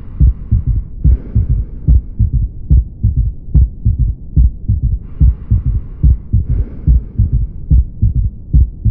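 Heart sounds with a third heart sound (S3): low thuds repeating quickly in a galloping three-beat pattern, an extra soft thud coming right after the normal first and second sounds.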